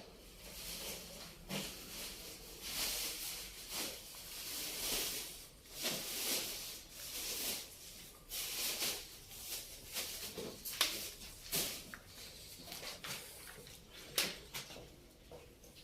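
Wood fire burning in a fireplace, hissing unevenly with scattered sharp crackles and pops.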